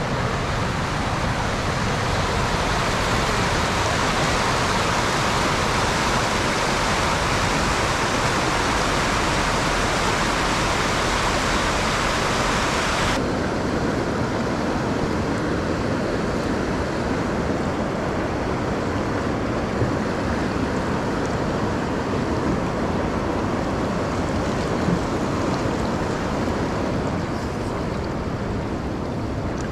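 White water rushing over rock ledges in a small waterfall and rapids, a steady loud rush of water. About halfway through it cuts to a duller, less hissy rush.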